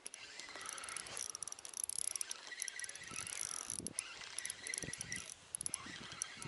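A spinning reel being cranked with a fish on the line: a fast, steady ticking whir from its gearing, broken by short pauses.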